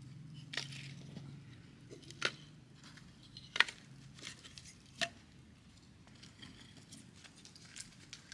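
Split firewood pieces knocking together as they are picked up and stacked into an armful: four sharp wooden clacks roughly a second and a half apart, the loudest about three and a half seconds in, then a few faint clicks near the end.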